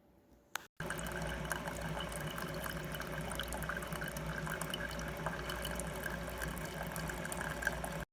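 Single-serve coffee maker brewing: a click, then from about a second in its water pump running with a steady hum while coffee streams and drips into the cup.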